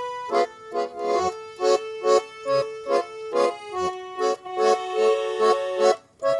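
Garmon (Russian button accordion) playing a tune: a melody line over a regular pulse of bass-and-chord strokes, with a short break near the end before it resumes.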